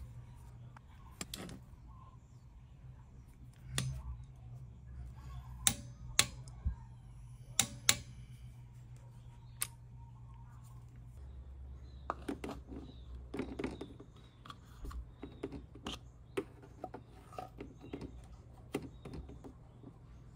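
Irregular sharp metallic clicks and clinks of a torque wrench and socket on the oil drain bolt, several loud clicks bunched between about five and eight seconds in, over a steady low hum.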